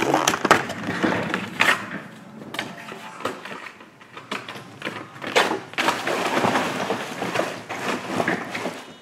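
Trading-card packaging being handled: foil card packs and cardboard boxes rustling and crinkling, with irregular sharper crackles and knocks.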